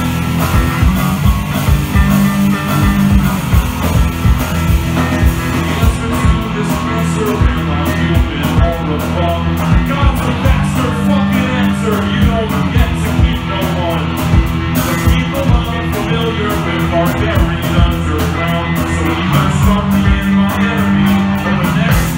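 Live punk rock band playing: electric guitar, electric bass and drum kit, with the guitarist singing into the mic. The drums keep a steady beat, with cymbal strikes coming thicker from about six seconds in.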